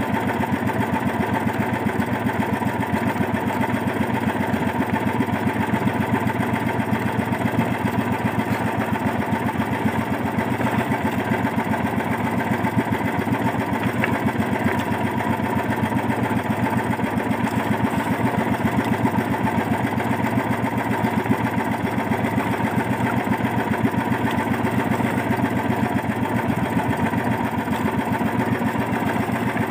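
The outrigger fishing boat's small engine running steadily with an even, rapid beat. The owner reckons the engine is misfiring.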